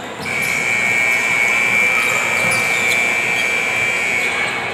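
A steady high-pitched electronic tone, like a gym buzzer, sounds about a third of a second in and holds unchanged for about four seconds over the gym's background noise.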